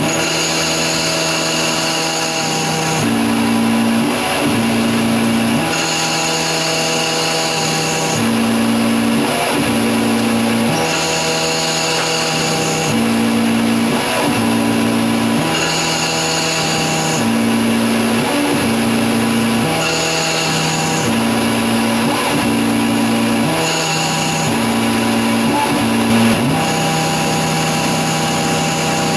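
Grizzly G0602 CNC lathe internal-boring an aluminum tube with a boring bar under coolant. There is a steady machine whine whose tones switch pitch every two to three seconds, and a hiss that comes and goes on the same beat as the tool makes repeated passes.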